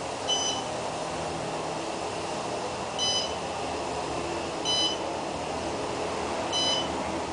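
Otis parking-garage elevator car travelling down with a steady hum. A short electronic beep sounds four times, about every two seconds.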